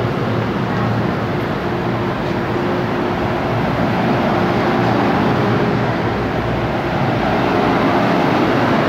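Steady hum and rush of an MTR M-Train standing at a platform with its doors open, its ventilation and on-board equipment running, with a faint steady tone in it.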